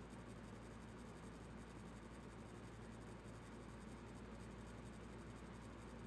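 Four-blade ceiling fan running steadily: a faint, even whoosh of air over a low hum.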